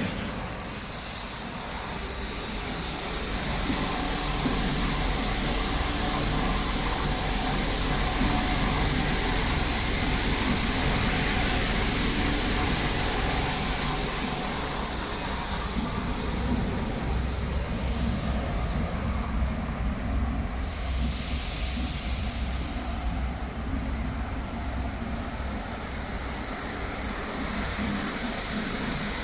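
Rotary drum washing machine running steadily: a low machine hum under a continuous hiss, with no break in the running.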